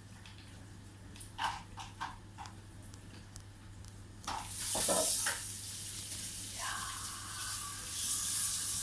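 A few faint clicks, then a loud steady hiss starts about four seconds in and keeps going.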